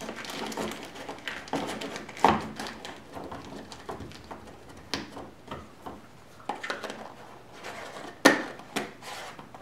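Hands handling a plastic mailing container and its screw lid on a table: scattered clicks, light knocks and rustling, with sharper knocks about two seconds in and again near the end.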